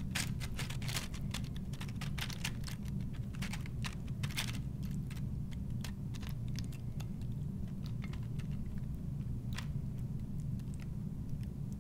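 Tortilla chips crackling and ticking as warm queso is poured onto them from a jar: many small crisp clicks, dense for the first few seconds and then thinning out to occasional ticks, over a steady low hum.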